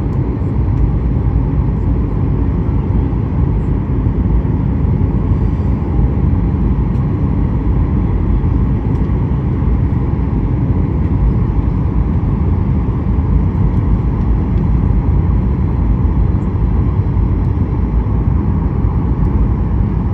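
Steady low rumble of an airliner cabin in flight, engine and airflow noise heard from inside the plane.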